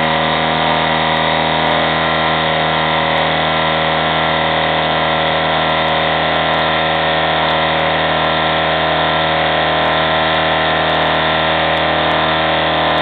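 Small CNC milling machine running steadily as it cuts copper-clad circuit board, its spindle motor giving a steady whine made of many tones.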